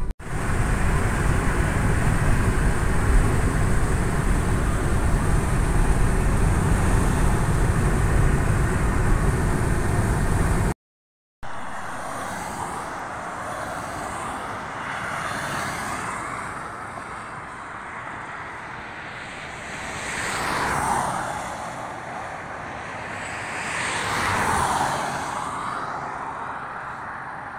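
Steady road and engine rumble heard from inside a moving car's cabin. After a sudden cut, quieter traffic noise follows, with two vehicles swelling past about two-thirds of the way through and again a few seconds later.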